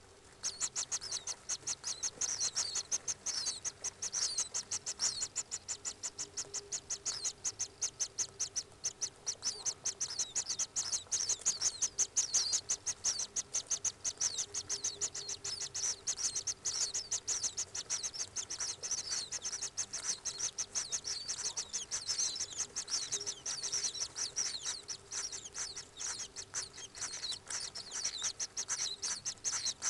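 Common kingfisher calls: a fast, unbroken series of high, thin piping notes, several a second, that starts abruptly about half a second in.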